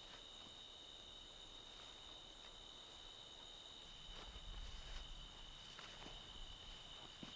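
Faint, steady chorus of crickets trilling without a break, with a few soft scattered footsteps or rustles in the leaves.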